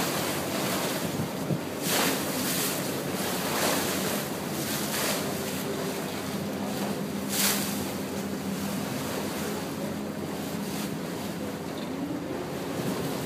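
Motorboat underway in open water: a steady engine hum under the rush of water along the hull. Wind buffets the microphone, with strong gusts about two, four and seven seconds in.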